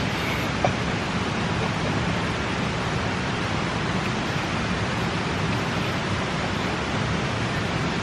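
Steady rush of flowing river water, an even noise that holds level throughout.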